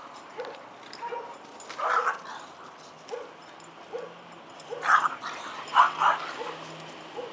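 Dogs barking, with short repeated whimpering yelps between the barks. The loudest barks come about two seconds in and again about five to six seconds in.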